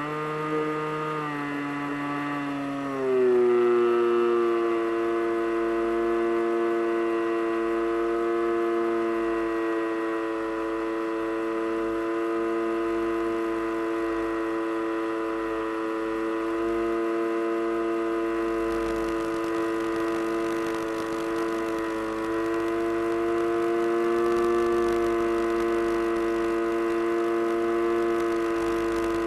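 FPV Raptor model aircraft's motor and propeller running steadily. The pitch drops about three seconds in as the throttle is eased back, then holds.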